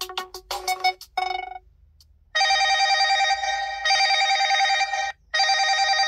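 ZTE Axon 40 Ultra smartphone ringtones. A melody of quick short notes ends about a second and a half in. After a brief pause a new ringtone starts: a trilling electronic ring in bursts of about a second and a half, separated by short gaps.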